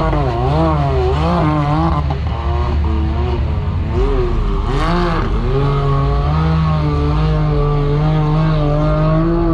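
Side-by-side UTV engine revved hard, its pitch rising and falling in quick surges of the throttle while the machine works over the course obstacles. From about halfway through it holds at steady high revs.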